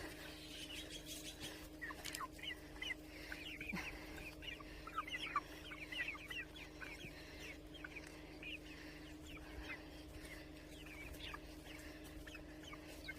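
A flock of free-range chickens clucking softly among themselves, many short high calls scattered throughout, over a faint steady hum.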